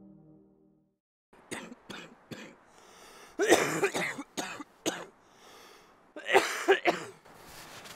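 A woman coughing into her gloved hand: a few short coughs, then two harder, louder fits of coughing, the second near the end.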